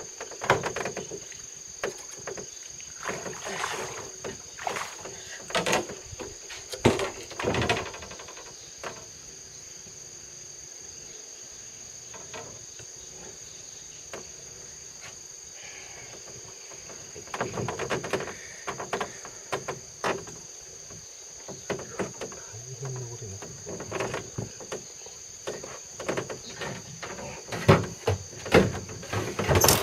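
Insects singing steadily in a high, unbroken tone, with irregular knocks and rustling clatter over it, thickest in the first few seconds and again in the second half.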